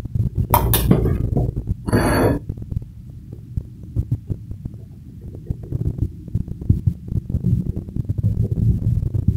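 A metal spoon scraping and clinking on a ceramic plate, once about half a second in and again, with a short metallic ring, about two seconds in. Under it a low, throbbing rumble runs throughout.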